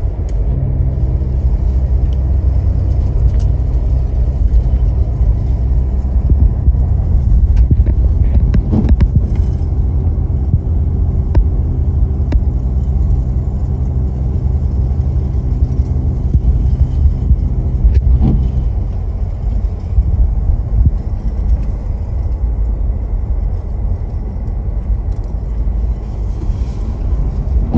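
Pickup truck driving, heard from inside the cab: a steady low engine and road rumble, with a droning hum over it that fades out about 18 seconds in.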